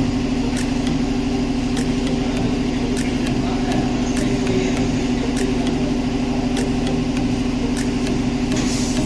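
Steady mechanical hum with a faint tick repeating a little under twice a second, and a short hiss near the end.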